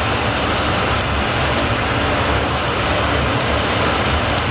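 Steady low rumble and hiss, with a high electronic beep that comes and goes.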